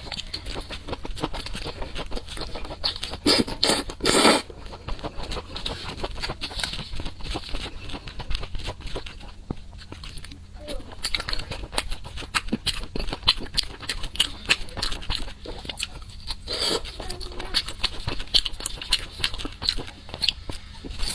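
Close-up eating sounds: a dense run of crunching and chewing clicks, with a couple of louder bursts, one about three to four seconds in and another past the middle.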